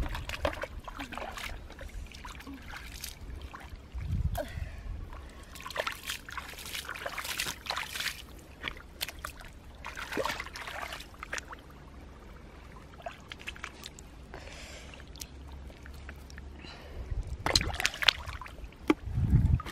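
Feet and hands working through shallow muddy water and soft mud: irregular sloshing, splashing and squelching at uneven intervals.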